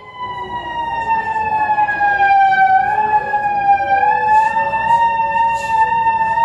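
A siren sounding outside: one loud, steady tone that sags slowly in pitch over the first few seconds and then climbs back.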